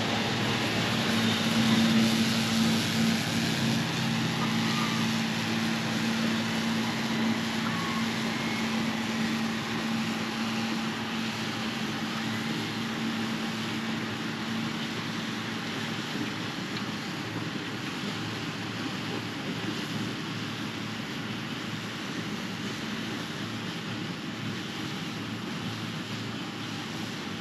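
Combine harvester running in a wheat field: a steady machine noise with a low engine hum that fades out a little over halfway through, the whole sound slowly getting quieter as the machine moves away.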